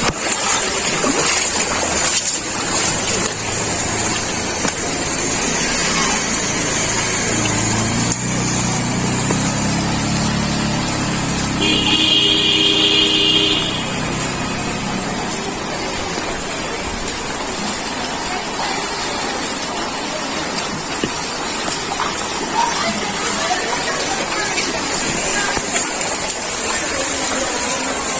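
A motor vehicle passes: its engine rumble swells and fades over a few seconds, and it sounds its horn once for about a second and a half as it goes by. A steady outdoor background noise runs underneath.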